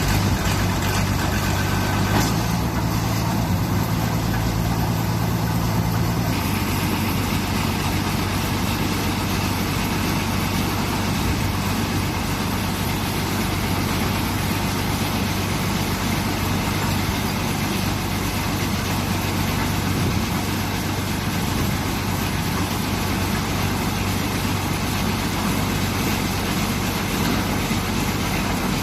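Backhoe's diesel engine running steadily, its note shifting about six seconds in.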